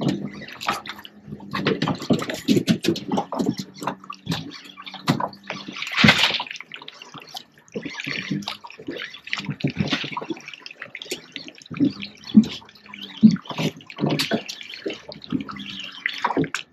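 Water sloshing and splashing, with many small irregular knocks and clicks and a louder splash about six seconds in, over a faint steady low hum.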